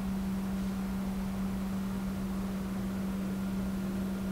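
Steady low hum, one unchanging tone, over a constant even hiss.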